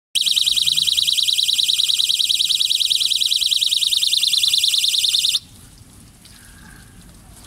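Solar-powered ultrasonic animal repeller sounding its audible alarm: a loud, high-pitched, rapidly pulsing buzz that cuts off suddenly about five seconds in, leaving a faint hiss.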